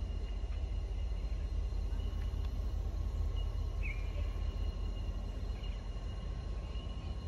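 Outdoor ambience: a steady low rumble under faint, steady insect trills, with one short bird chirp about four seconds in.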